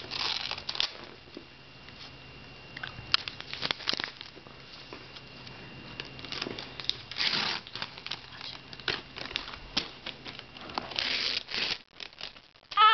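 Gift wrapping paper being torn and crumpled by a small child's hands, in irregular rips and rustles with the loudest tears about three to four seconds in, around seven seconds, and near eleven seconds.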